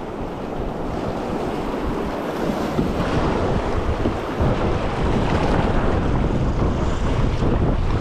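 River water rushing around a kayak, with wind buffeting the microphone; the low wind rumble grows stronger about halfway through.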